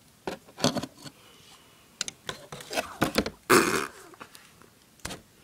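Handling noises from plastic model horses being moved about: a run of clicks and knocks, with a short burst of rustling about three and a half seconds in.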